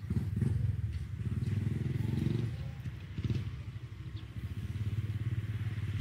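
A small engine running steadily, with a fast, even pulse.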